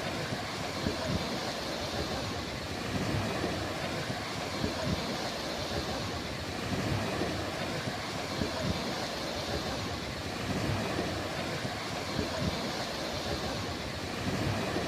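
Sea waves washing onto a beach: a continuous rushing surf noise with a low rumble, swelling and easing every couple of seconds.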